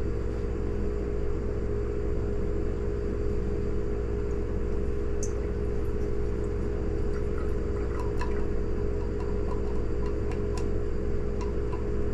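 Vanilla extract being poured slowly through a small funnel into a small glass bottle: a faint trickle with a few light clicks from about five seconds in, over a steady low hum.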